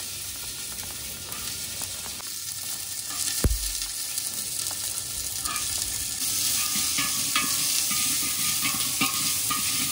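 Sliced onions sizzling as they fry in hot oil with whole spices, stirred, with scattered clicks of the spoon against the pot. A single sharp knock about three and a half seconds in.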